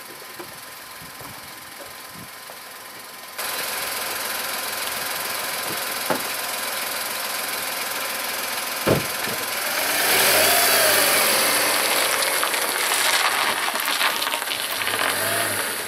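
A car door slams once. Then a car engine runs and revs as the car pulls away, over a steady outdoor hiss.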